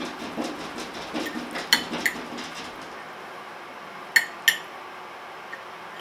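Metal fork clinking against a ceramic plate: a few sharp clinks, two of them close together about four seconds in, over a soft rhythmic sound that stops about three seconds in.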